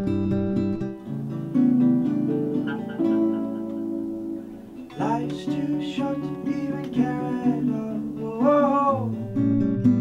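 Live acoustic band performance: acoustic guitar playing the song's intro, with a man's voice starting to sing about five seconds in.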